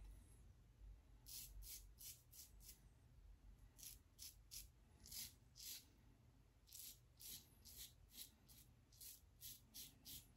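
Shave It Shadow aluminium double-edge safety razor scraping through lathered stubble on the cheek: short, faint strokes in quick runs of several, with brief pauses between runs.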